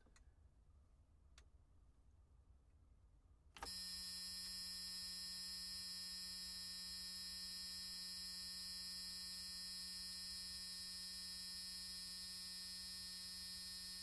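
A steady, harsh electric buzz that starts abruptly about four seconds in and holds unchanged in pitch and level.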